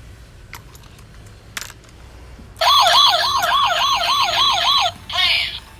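A battery-powered toy police car's electronic siren: after a few faint clicks it starts about two and a half seconds in, a fast wail rising and falling about three times a second. It stops about five seconds in, then gives a shorter burst.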